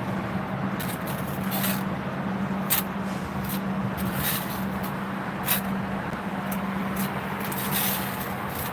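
Short scrapes and taps of a mason's trowel against mortar and stone, roughly one a second, over a steady low hum.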